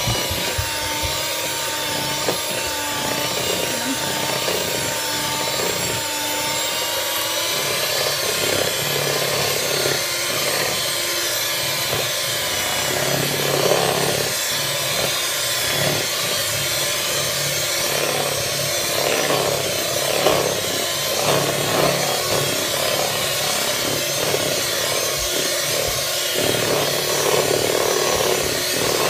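Electric hand mixer running steadily, its beaters whirring through thick cake batter to beat it lump-free. A steady motor whine, with a rougher, uneven grinding from about halfway through.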